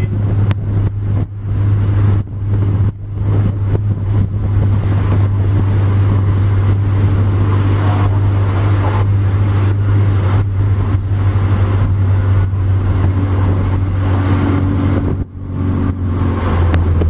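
Mini 7 race car's engine running hard at a steady note, heard from inside the car, with a brief dip in the engine sound about fifteen seconds in.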